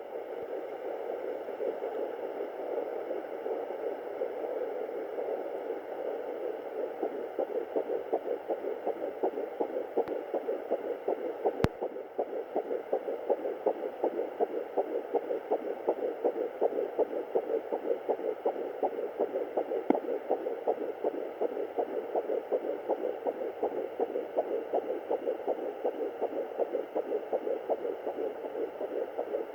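A handheld fetal doppler picks up a fetal heartbeat at 10 weeks 6 days of pregnancy. It is a steady whooshing hiss with fast rhythmic pulses, about three a second, that grow clearer after about eight seconds. A single sharp click comes about twelve seconds in.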